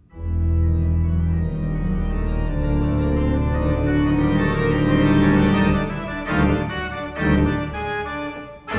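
Music soundtrack of held chords over a steady low bass, starting abruptly after a brief gap, with a few louder swells near the end.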